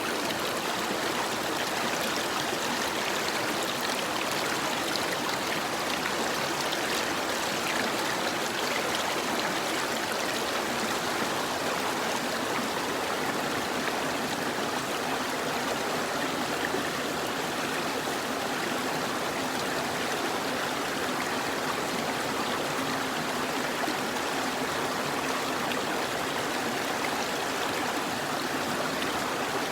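A river flowing: a steady rush and babble of running water that keeps an even level throughout.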